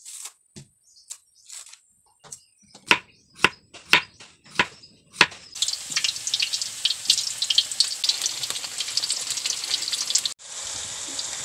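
A knife cutting through a firm unripe tindok banana, a run of sharp clicks about every half second. Then round banana slices frying in hot oil in a wok, a dense crackling sizzle, which cuts off near the end and comes back as a steadier hiss.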